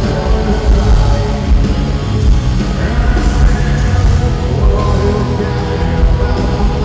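A rock band playing live and loud, with a heavy low end of bass and drums running through without a break.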